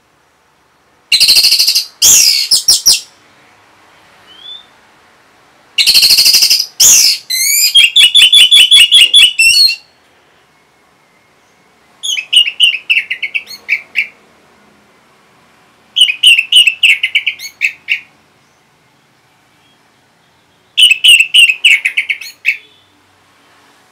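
Orange-headed thrush singing loud phrases of rapid, repeated whistled and chattering notes, about five bursts of roughly two seconds each with short pauses between.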